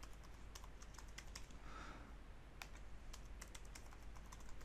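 Computer keyboard being typed on: faint, irregular key clicks.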